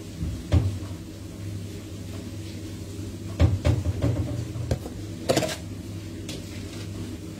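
Kitchen handling sounds: a knock about half a second in, then a quick run of knocks and clatters between about three and five and a half seconds in as cupboards and a plastic bowl are handled, over a steady low hum.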